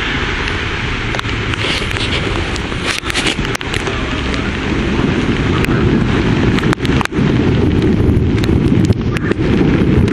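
Thunderstorm wind buffeting the microphone as a loud, steady rushing, with scattered sharp ticks of rain. It dips out briefly a few times.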